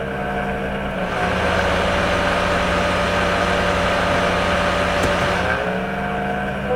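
Laptop GPU cooling fan switched to maximum. About a second in it spins up to a louder, airier whoosh with a steady whine, holds, then slows back down near the end as the whine glides lower. The owner suspects this fan of causing the laptop's strange noises.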